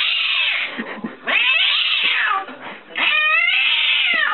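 Domestic cat yowling: three long, drawn-out caterwauls in a row, each bending in pitch and trailing downward at the end.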